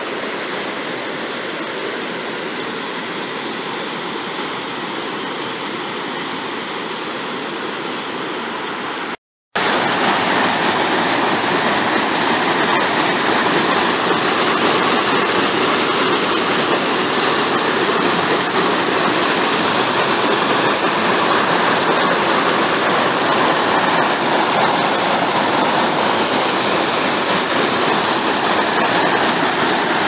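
Water rushing over the rocks of a river cascade, a steady even rush. The sound cuts out for a moment about nine seconds in and comes back louder, with white water tumbling over the rocks.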